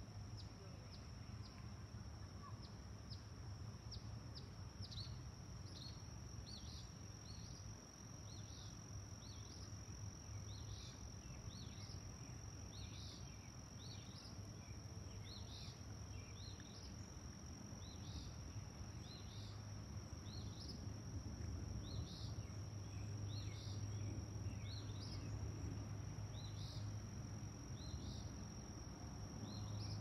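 Lakeside ambience: a small bird gives short falling chirps about once a second over a steady high-pitched insect drone, with a low rumble of background noise that grows louder in the second half.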